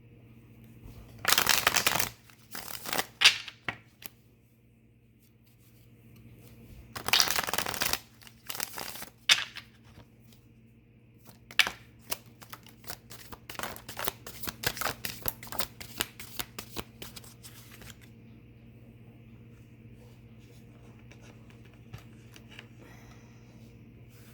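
A deck of tarot cards being shuffled by hand: several loud rustling shuffle bursts in the first ten seconds, then a run of quick card snaps and taps for about six seconds. After that only a faint steady hum remains.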